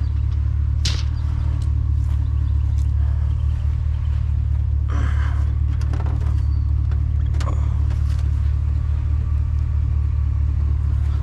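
Truck engine idling with a steady low rumble. A few scattered knocks and a rustle sound over it, about one second in, around five seconds in and again at seven and a half.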